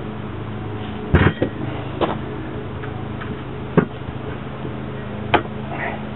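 Four sharp metal clanks, the first the loudest, as steel tire irons are worked against a split-ring truck rim, over a steady low hum.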